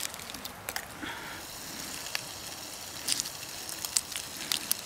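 Food frying in a pan on a stove burner: a steady sizzle with scattered small pops and clicks.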